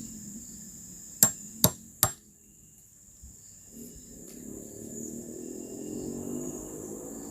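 Three sharp knocks of a tool striking bamboo, a little under half a second apart. A steady high insect drone runs underneath, and a low rumble builds in the second half.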